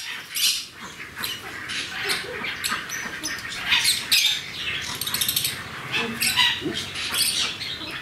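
A flock of parrots in an aviary calling: many short, high-pitched squawks and chirps overlapping, with hardly a break.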